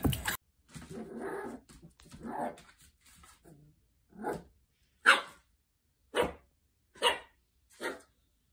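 Small curly-coated puppy barking at its own reflection in a mirrored closet door: a couple of soft, growly woofs, then five sharp yaps about a second apart.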